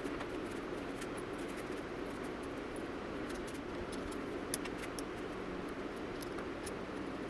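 Scattered light clicks and ticks over a steady low hum, with one sharper click about four and a half seconds in.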